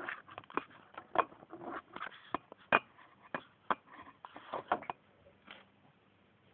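Irregular clicks, knocks and rustles of a handheld phone being moved about, stopping about five seconds in.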